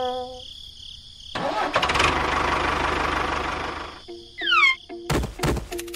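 An engine starting and running for about two and a half seconds with a pulsing rumble, after the tail of a horn-like tone. Near the end come a few quick falling whistles and sharp thumps, then rattly percussion music starts.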